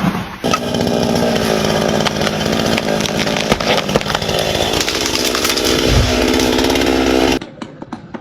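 Chainsaw running at high speed, cutting into wood, steady and loud; it cuts off abruptly near the end.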